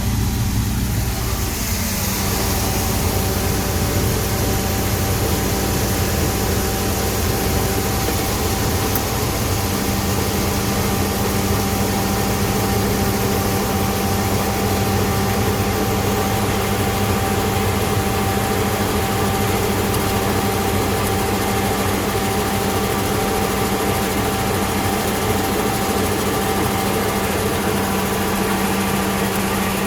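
Claas Lexion combine harvester running steadily: an even engine drone with a constant whine over it, the note shifting slightly about two seconds in.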